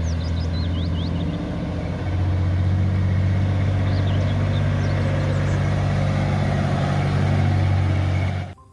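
A motor running steadily: a strong low hum with an even hiss over it, a little louder from about two seconds in, ending abruptly near the end. Birds chirp briefly near the start and again around four seconds in.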